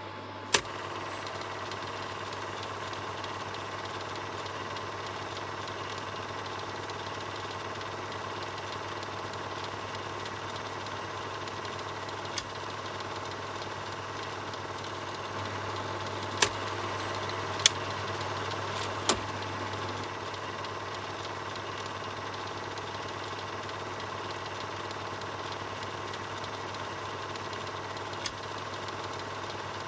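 Film projector running steadily: a continuous mechanical whirr over a low hum, with a few sharp clicks, several of them close together in the middle and one near the end.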